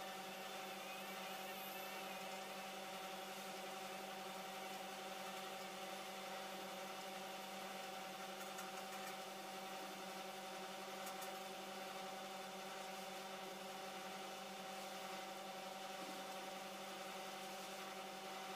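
Faint, steady drone of a diesel engine running at constant speed, with an even hum that does not rise or fall.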